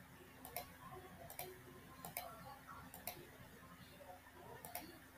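Computer mouse clicking: about five sharp single clicks, roughly a second apart but unevenly spaced, over a faint steady hum.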